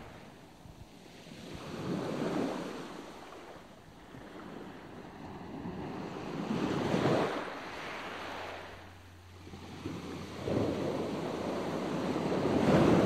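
Sea water rushing and splashing along a moving boat's hull, mixed with wind on the microphone, rising and falling in slow surges every few seconds and loudest near the end. A low steady hum comes in about two thirds through.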